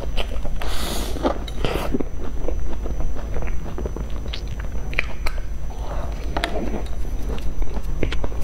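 Close-up mouth sounds of biting and chewing a soft cream-filled sponge cake: moist smacking clicks throughout, with a couple of brief breathy hisses about one and two seconds in, over a steady low hum.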